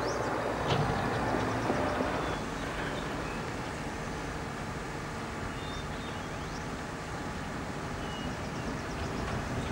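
Farm tractor engine running steadily while it tips up a loaded trailer of chopped grass, a little louder for the first two seconds.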